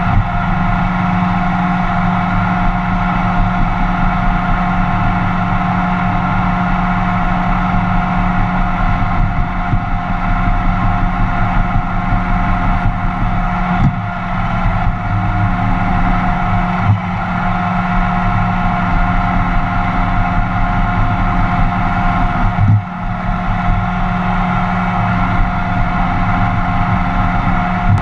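Roomba robot vacuum running: a steady motor hum with a higher whine over it, broken by a few brief knocks.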